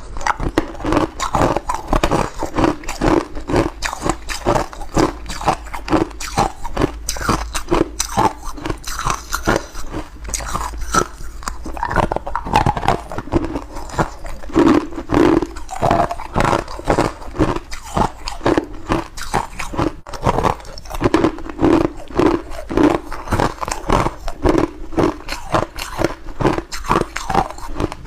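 Ice cubes with edible flowers frozen in them being bitten and chewed, a steady run of sharp crunches, a couple every second.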